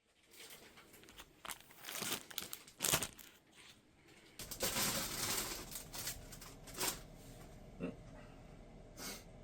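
Irregular crinkling and rustling of something being handled, with sharper crackles, the loudest about three seconds in.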